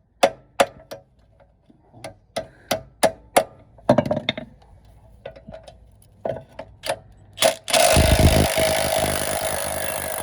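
A hammer striking metal again and again, each blow ringing at the same pitch, in irregular runs with short pauses. Near the end a power tool starts and runs steadily.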